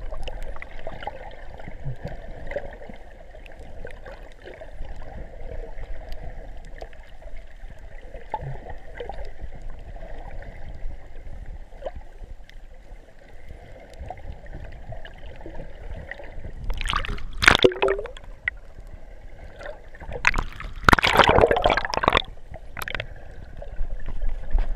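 Water sloshing and gurgling heard with the camera under water while snorkeling, with two louder bursts of bubbling water noise, one about two-thirds of the way in and a longer one near the end.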